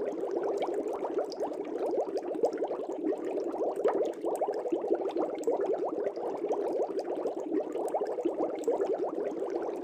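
Air bubbles streaming up through the water of a fish tank: a dense, steady bubbling made of many quick small bubble blips overlapping.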